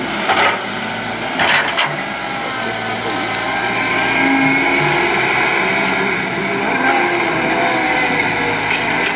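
CAT 312D hydraulic excavator working, its diesel engine and hydraulics running steadily under load. Two short harsh bursts come about half a second and a second and a half in.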